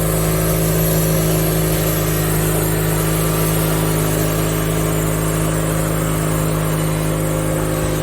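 Wood-Mizer LT30 G18 portable sawmill's engine running at a steady speed, with an even pitch throughout.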